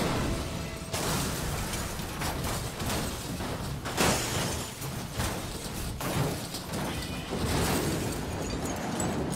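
Car crash: a sedan hit and rolling over, with dense crashing noise and sudden impacts about one, four and six seconds in, the loudest near four seconds.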